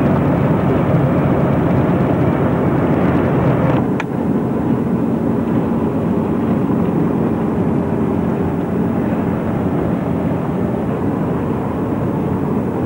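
Steady road and engine noise of a moving car heard from inside the cabin, a continuous low rumble, with one brief click about four seconds in.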